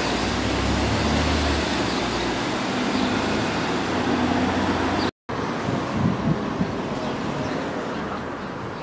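Street traffic noise: a motor vehicle's low hum in the first couple of seconds, fading over a steady road rumble. The sound breaks off for an instant about five seconds in.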